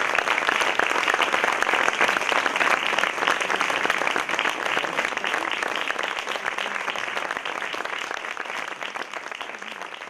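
Theatre audience applauding: dense clapping from many hands that slowly dies down over the last few seconds.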